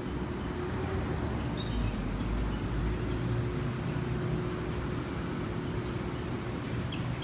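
Street traffic ambience: a steady low rumble of vehicles that swells between about two and three and a half seconds in, under a steady hum and a few faint, short high chirps.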